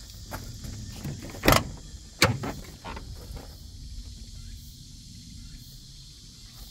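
Volvo FH12 truck's cab door being unlatched and swung open: two sharp clunks under a second apart, followed by quieter handling knocks.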